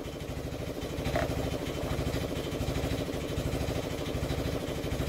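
Workshop air compressor running steadily with a regular pulsing beat, still building up to pressure.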